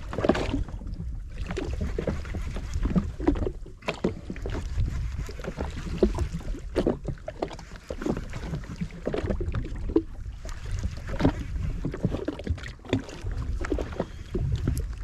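Small waves slapping and sloshing irregularly against a drifting jet ski's hull, with wind buffeting the microphone.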